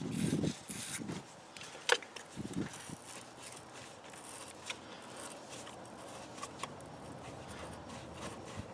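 Wire-brush battery post cleaner scraping on the battery posts, busiest in the first second, then faint rubbing with a few light clicks.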